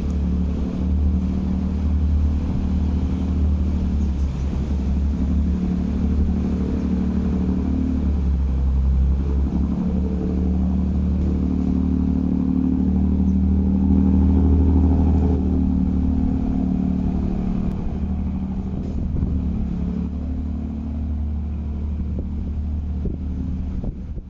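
A ferry's diesel engine running steadily at cruising speed, a loud low hum with a deeper drone under it, heard on board along with the wash of the water. It cuts off abruptly at the very end.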